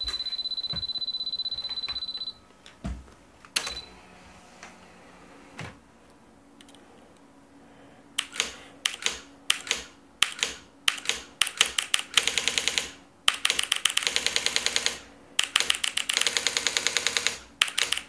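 Brother electronic typewriter printing, driven by key presses relayed through a Raspberry Pi. From about eight seconds in, it gives quick single strikes and then runs of rapid, evenly spaced strikes, each a second or more long. A steady high whine sounds for the first two seconds, then stops.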